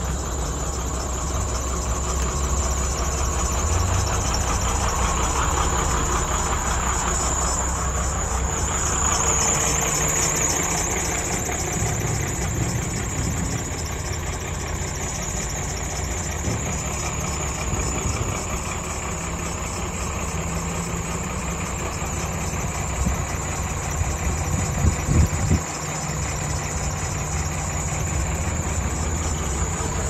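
JCB 210S backhoe loader's diesel engine idling steadily, with a few brief knocks near the end.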